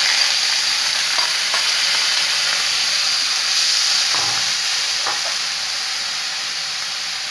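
Small shrimp sizzling in hot oil in an aluminium kadai just after going in, the sizzle slowly easing, with a few light scrapes and knocks of a spatula stirring them.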